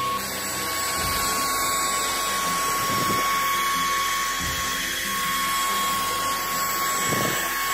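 Bissell CrossWave wet-dry vacuum running on a rug: a steady motor whine with an even rushing hiss of suction, and a few faint low thumps as the head is moved.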